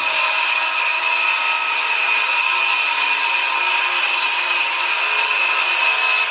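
Power tool running steadily under load, a high whine over a rushing noise, holding even throughout and stopping abruptly.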